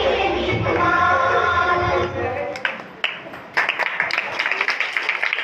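A recorded song with a female singer and a beat plays, then cuts off about two and a half seconds in. About a second later, quick hand clapping and people's chatter, children among them, start up.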